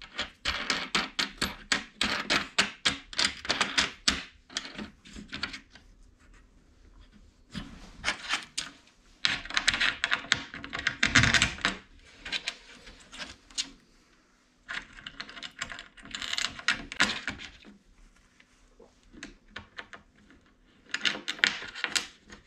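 Wing nuts being spun by hand down M8 bolts and steel brackets shifting against an aluminium track-saw guide rail: spells of rapid small metallic clicks and rattles, with short pauses between them.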